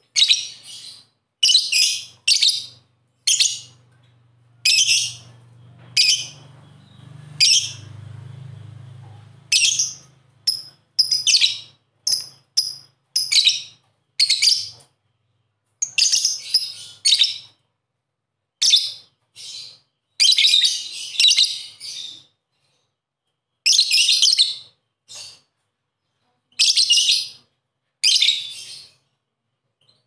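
Lovebird chirping in short, shrill calls that come in irregular bouts of two or three, with brief pauses between them.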